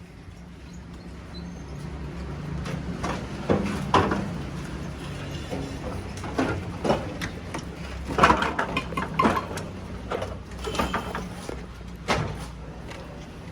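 A steady low mechanical rumble that swells over the first few seconds, with irregular knocks and clanks throughout, the loudest clusters about four and eight seconds in.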